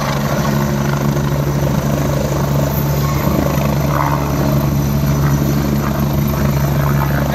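Helicopter hovering low over the helipad as it settles in to land, its rotor and turbine giving a loud, steady drone.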